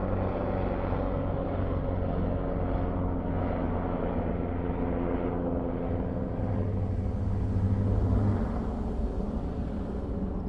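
A motor engine running with a steady low hum, swelling a little about seven to eight seconds in and fading near the end.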